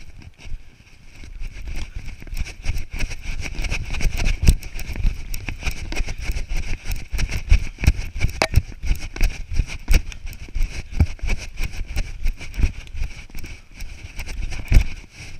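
Wind rumble and irregular knocking thumps from movement on a worn action camera's microphone as the wearer moves about, over a steady high hiss.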